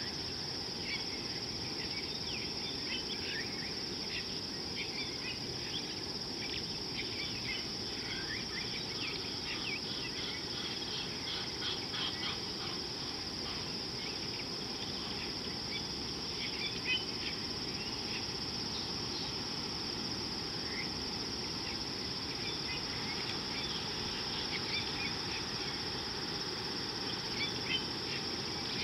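Steady, high-pitched drone of insects, with many short bird chirps scattered through it and busiest about a third of the way in.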